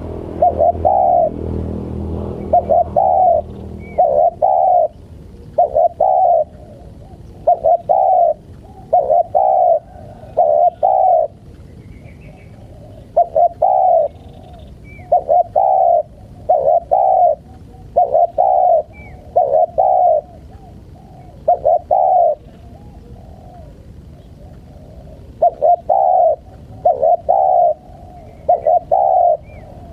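Spotted dove (tekukur) cooing over and over in short runs of low coos, with a couple of brief pauses. Faint high chirps of small birds sound behind it.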